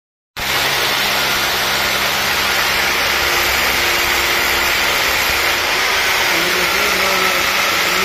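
Corded hammer drill with a 19 mm bit boring an anchor-fastener hole into the ceiling overhead, running steadily after a split second of silence at the start.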